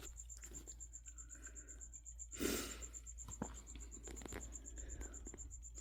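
A cricket chirping steadily: an even, rapid pulsing of one high note. A brief rustling swish comes about two and a half seconds in.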